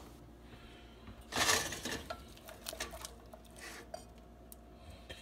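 A saucepan being handled on an electric coil stove: a short scrape about a second and a half in, followed by a few light clinks and taps against the pan.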